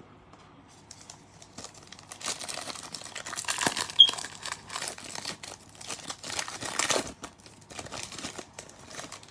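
A 2019 Donruss Elite trading-card pack wrapper being torn open and crinkled by hand. The crackling comes in uneven bursts, loudest about four seconds in.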